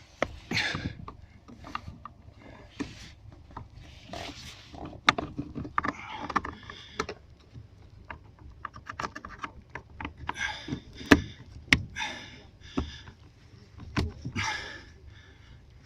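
Handling noises of a plastic clutch-pedal retainer being pushed by hand into the pedal bracket: scattered sharp clicks and knocks, the loudest a few near the middle, with short scraping and rustling between them.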